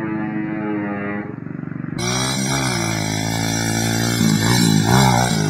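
Small pit bike engine running and revving, its pitch rising and falling with the throttle. The sound changes abruptly about two seconds in, becoming a little louder and fuller, where a new clip begins.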